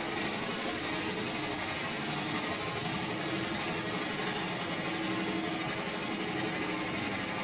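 Sawmill machinery running steadily: a continuous mechanical drone with a faint constant hum.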